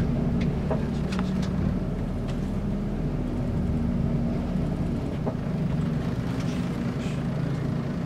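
Bus engine running steadily in a low, even drone, with a few faint clicks and rattles over it.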